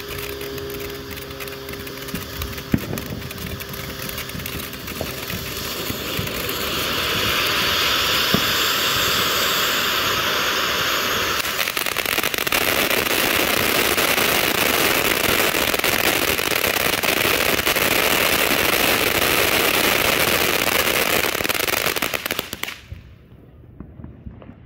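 Atomic Salsa ground fountain firework burning: a steady hiss of spraying sparks with scattered crackles and pops. It grows louder about seven seconds in, then cuts off about twenty-three seconds in as the fountain burns out.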